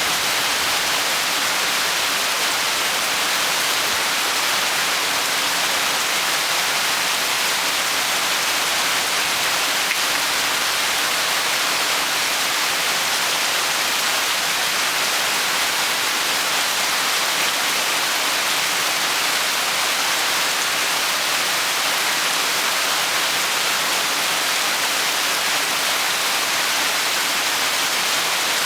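Rain falling steadily, an even hiss with no breaks or single drops standing out.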